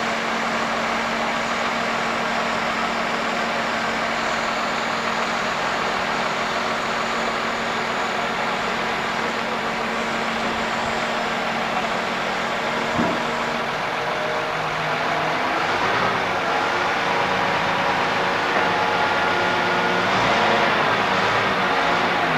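A heavy vehicle's engine running steadily, its note shifting about fourteen seconds in, with a single knock shortly before.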